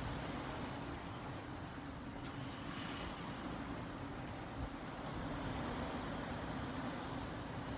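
Typhoon wind rushing steadily around a building, heard from indoors, with a steady low hum beneath it.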